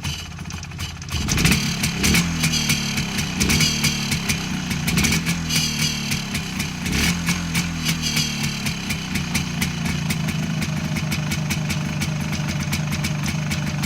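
MZ ETZ 250 single-cylinder two-stroke engine running with an odd mechanical noise that the owner puts down to its VAPE (Powerdynamo) ignition rotor. It gets louder about a second and a half in and swells several times before settling to a steady run.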